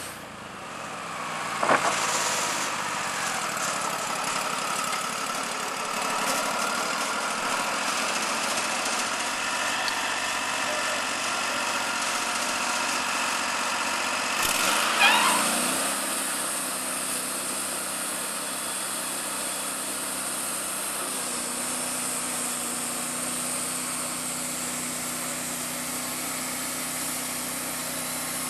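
Engine of a portable bandsaw sawmill running steadily while sawing logs. A short sharp noise comes about two seconds in, and a brief wavering high squeal about halfway through.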